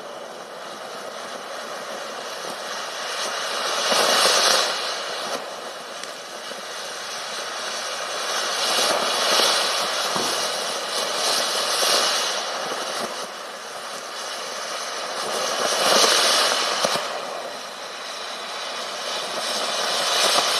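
WINDA P3212 'Eruption', a 1.4G consumer fountain firework, spraying sparks with a steady rushing hiss that surges and fades several times as the fountain grows taller and dies back.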